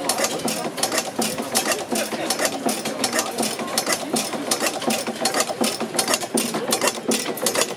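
Kappel stationary gas engine running, with a steady rhythmic mechanical clatter of several clicks a second from its valve gear and ignition.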